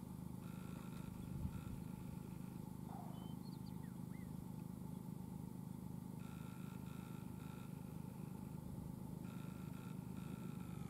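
Faint steady low hum, with a few faint short high chirps about three to four seconds in.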